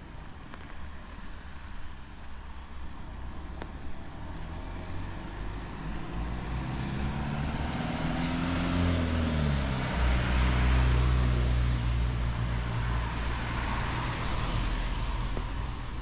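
A box truck drives up and passes on a wet road. Its engine note falls in pitch as it goes by, with tyre hiss on the wet asphalt that is loudest about ten seconds in, then a low rumble as it moves away.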